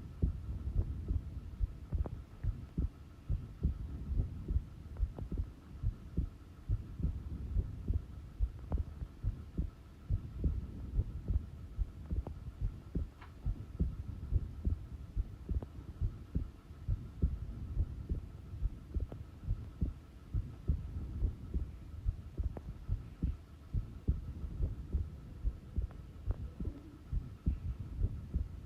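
A normal human heart beating at rest, recorded close up: a regular run of low, dull thumps, with a faint steady hum underneath.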